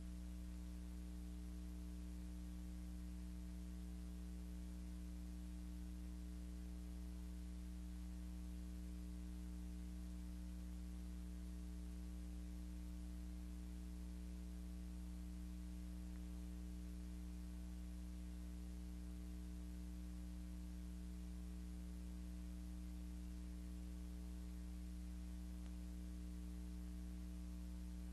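Steady electrical mains hum with a layer of hiss, unchanging, with no other sound: the noise floor of a silent archival film transfer.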